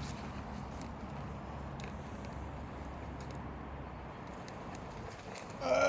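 Faint steady outdoor background noise with a low hum and a few light taps; a child's voice starts near the end.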